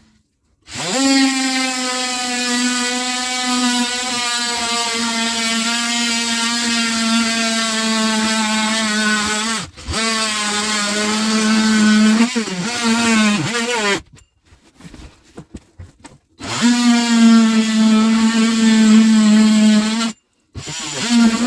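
Electric power drill running in three long runs, its motor whine spinning up at the start and sagging in pitch for a moment near the middle, as under load.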